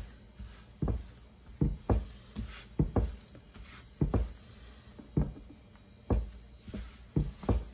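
Hands kneading a large ball of soft flour dough on a floured worktop: dull thumps roughly once a second, unevenly spaced and some in quick pairs, as the dough is pressed, folded and turned.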